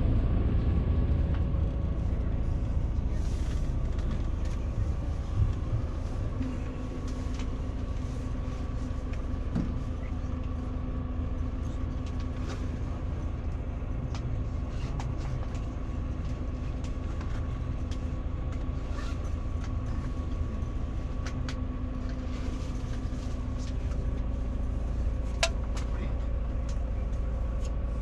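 Coach bus engine running steadily, heard from inside the passenger cabin as a low rumble with a constant hum, with occasional light clicks and knocks.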